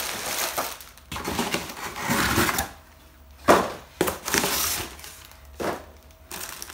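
Packaging being handled: cellophane wrap crinkling and cardboard rustling as wrapped porcelain plates are set down and the box is reached into, with a few sharp knocks, the loudest about three and a half seconds in.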